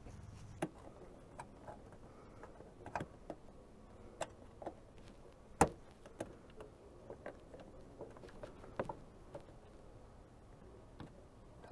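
Scattered light clicks and taps of a flat-blade screwdriver's metal tip against a plastic push-pin rivet and the plastic trim around it, as the pin is pried at. One sharper click comes a little past halfway.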